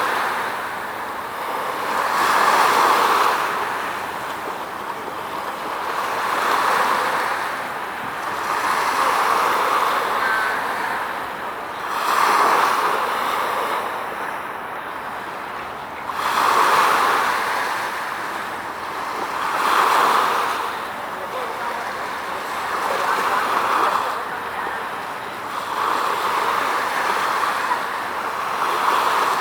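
Sea waves washing in and drawing back, a rushing surge that rises and falls about every three to four seconds.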